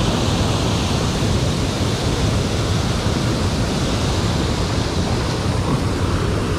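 Water pouring over a low dam's spillway into the river below: a steady, even rush of falling water with no break.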